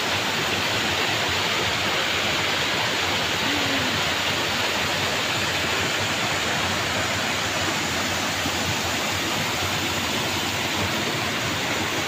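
Tiered waterfall cascading over rocks into a pool: a steady, unbroken rush of falling and flowing water.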